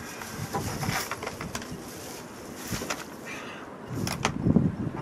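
Scattered light clicks and knocks of tools and small hardware being handled, over steady background noise.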